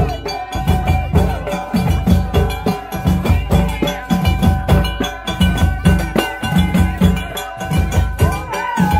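Moroccan village folk music: fast, dense drumming beats with a steady held high note above.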